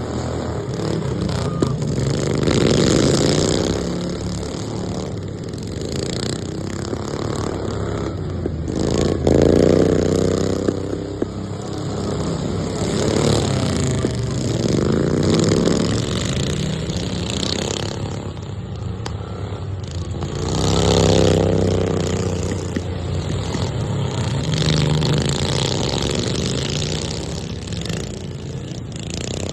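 Racing lawn mower engines revving hard as the machines lap the track, the sound swelling and rising and falling in pitch each time they pass, about every four to six seconds.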